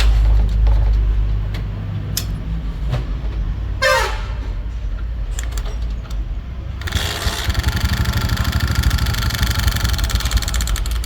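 Hero Splendor motorcycle engine running with its engine opened up, a low steady rumble. About four seconds in there is a brief falling squeal. From about seven seconds in a fast, dense rattling clatter runs over it: the engine noise fault being checked.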